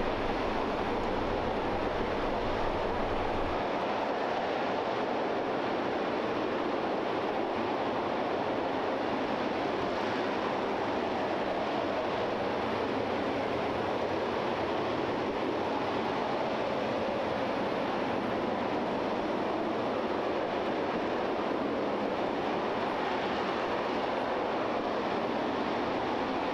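RS-25 liquid-hydrogen rocket engine firing on a test stand: a steady, unbroken roar, whose deepest rumble falls away a few seconds in.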